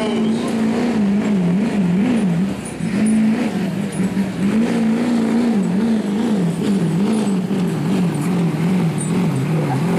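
Ford Super Duty diesel pickup running hard under load as it drags a weight-transfer pulling sled. Its engine note wavers up and down about twice a second, with a brief dip about two and a half seconds in.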